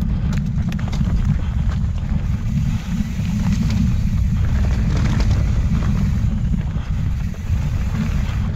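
Heavy wind buffeting on the microphone of a moving mountain bike's camera, with scattered clicks and rattles from the bike and its tyres running over the trail.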